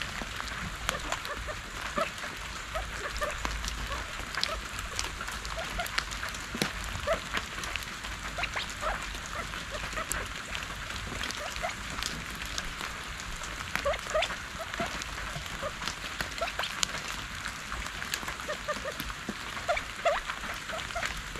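Steady patter and dripping of rain on wet leaves, with many small ticks and scattered short soft chirps from a covey of California quail foraging in the leaf litter.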